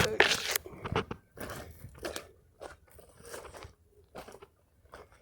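Footsteps crunching irregularly on dry ground and brush, loudest in the first second and thinning out toward the end.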